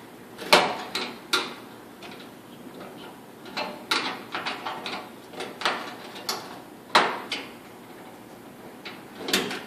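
Sharp metallic clicks and clinks at irregular intervals as a flat-blade screwdriver pops the wire connectors off a clothes dryer's heating element terminals. The loudest come about half a second in and about seven seconds in.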